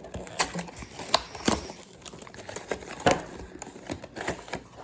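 Irregular sharp clicks and plastic crinkling as a new Square-1 puzzle and its packaging are handled and unpacked.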